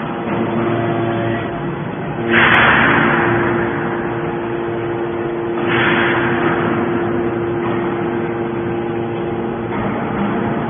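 Hydraulic scrap-metal baler running on copper wire: a steady pump hum, with two louder surges of rushing noise about two and six seconds in.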